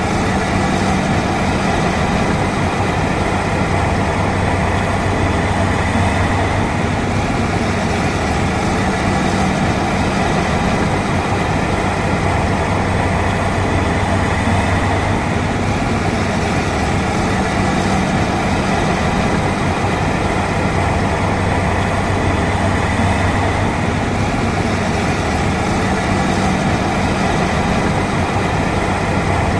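Claas Lexion combine harvester running steadily under load while harvesting, a continuous engine and machinery hum with a low steady drone.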